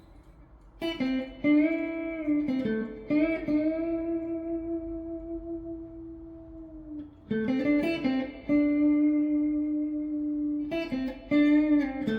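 Electric guitar with neodymium pickups playing a slow single-note lead line, starting about a second in, with upward string bends and long sustained notes.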